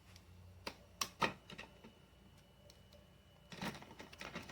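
Scattered light clicks and knocks from the plastic parts of a single-serve coffee maker being handled, a few in the first half and a quick cluster near the end.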